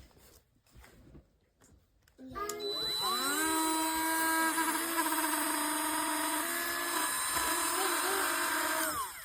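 HARDELL 12V cordless mini rotary tool switched on about two seconds in, its whine rising as the motor spins up, then running steadily at a high pitch for about six seconds before winding down near the end.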